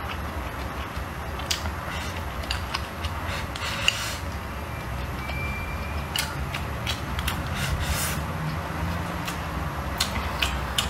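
Eating at a bowl: chopsticks clicking against the ceramic bowl and chewing, in scattered sharp clicks over a steady low hum.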